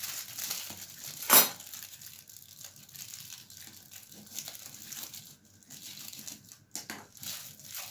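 Crinkling and rustling of a wrapper as an egg paratha roll is wrapped up for packing, with small irregular crackles and one sharp, louder crackle about a second and a half in.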